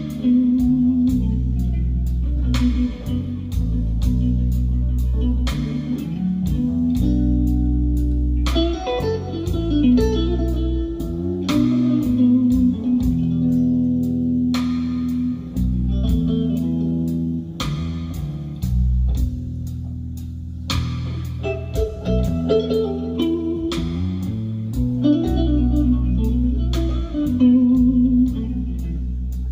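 A song with electric guitar, deep bass and a steady beat, played back over floor-standing hi-fi loudspeakers driven by AGD Production Audion monoblock amplifiers and heard in the listening room.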